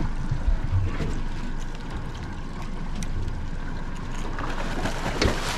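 Steady wind and water noise aboard a fishing boat, with a few faint knocks and a sharper thump about five seconds in.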